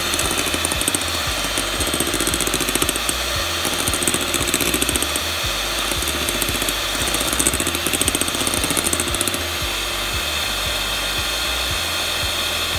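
Electric hand mixer running steadily, its twin beaters whipping egg whites and sugar toward a mousse-like foam. A steady motor whine comes with a fine, fast rattle.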